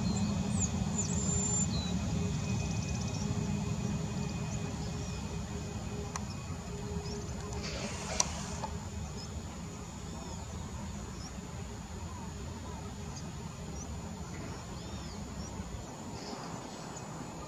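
Boeing 737 MAX 8's CFM LEAP-1B jet engines running at low taxi thrust: a steady low rumble with a faint whine that fades over the first half. Birds chirp throughout, and there is one sharp click about eight seconds in.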